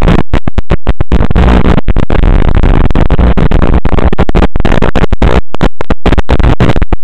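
Loud, harsh static with a steady low buzz, broken by many brief dropouts, from the audio channel of an analog FPV drone video link.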